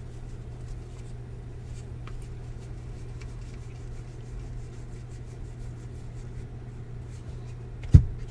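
Faint rustling and light clicks of baseball trading cards and pack wrappers being handled, over a steady low hum. A single sharp thump near the end is the loudest sound.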